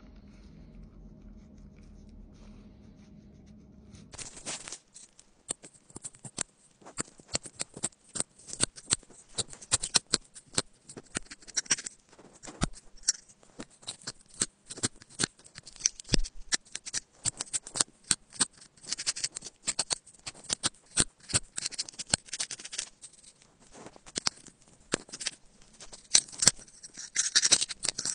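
A thin metal pick scraping and prying packed lint and grime out of a USB-C charging port, giving rapid, irregular scratchy clicks. It starts about four seconds in, after a faint low hum.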